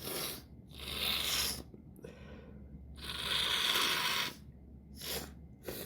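A woman sniffing and breathing hard through an irritated nose: several breathy rushes of air, the longest about three seconds in.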